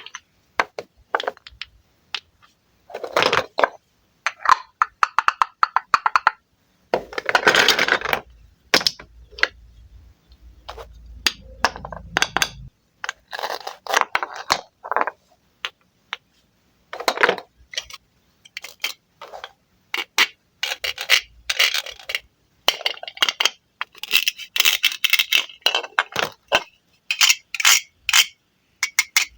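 A knife cutting wooden toy fruits: short bursts of scraping and sharp wooden clicks and clacks come in irregular groups, with brief pauses between them.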